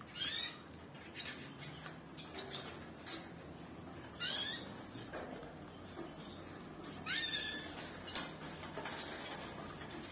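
Red canaries in wire aviary cages giving short sweeping calls, the clearest three near the start, about four seconds in and about seven seconds in, with softer chirps between. A few light clicks and taps, birds moving about the cages, are scattered through.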